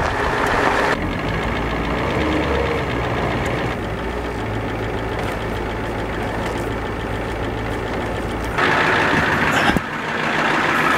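Ford Econoline van's engine running while the van is moved slowly. About eight and a half seconds in, the sound changes abruptly, and a sharp click follows about a second later.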